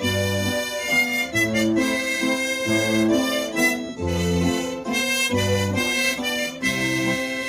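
Harmonica playing a melody in held notes over guitar accompaniment, with low bass notes recurring about every second and a half.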